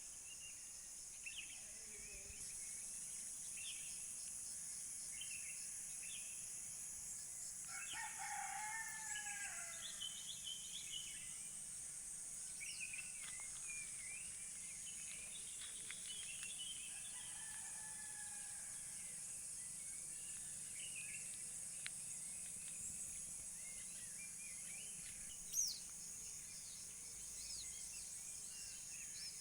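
A rooster crowing, one long falling crow about eight seconds in and another around sixteen seconds, with scattered small-bird chirps over a steady high-pitched hiss.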